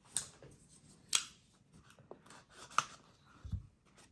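Keycap packaging being handled and opened: three sharp clicks about a second apart, the middle one the loudest, then a soft low thump near the end.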